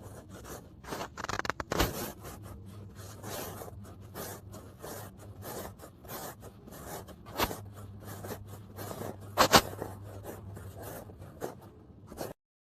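Kinetic sand being cut with a blade: a dense run of crisp, crackly scrapes, with a few sharper cracks and a faint low hum beneath. It cuts off suddenly near the end.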